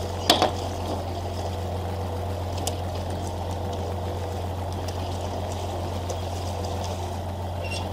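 Fishing boat's engine running with a steady low drone under water sloshing and splashing against the hull where a large fish is held alongside. Two sharp knocks come about a third of a second in.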